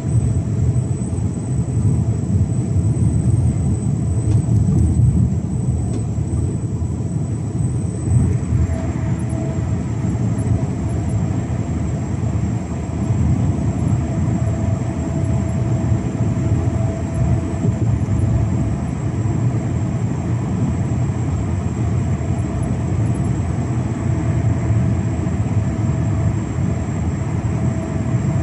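Mercedes-Benz Actros 1853 truck's V8 diesel engine running steadily under way on the motorway: a continuous low drone with a faint steady whine above it.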